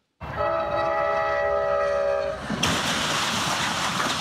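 Amtrak passenger train's air horn sounding a steady multi-note chord, cut off about two and a half seconds in by a sudden crash as the train strikes a car-transporter truck, followed by a loud continuous rush of noise as it ploughs through the wreckage.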